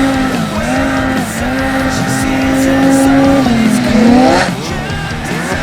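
Snowmobile engine running under throttle. Its pitch dips briefly, holds steady, then climbs sharply about four seconds in before dropping back.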